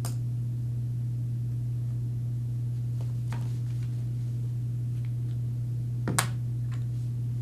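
Steady low electrical hum, with a few light taps and clicks from paint bottles and brushes being handled on the table; the sharpest click comes about six seconds in.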